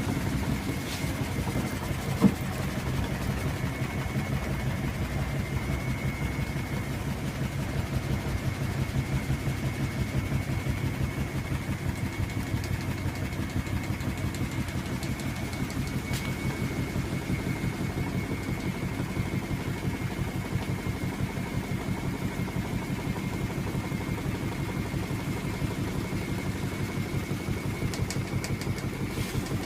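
Washing machine in its spin cycle, shaking on a wheeled cart: a steady, fast rhythmic throb from the unbalanced spinning drum, with a faint steady whine and one sharp knock about two seconds in.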